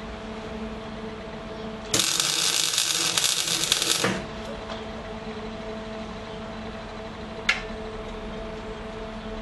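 Spool-gun MIG welder arc burning on aluminium: a loud crackling buzz that starts sharply about two seconds in and cuts off about two seconds later. A steady hum runs underneath, and a single sharp click comes near the end.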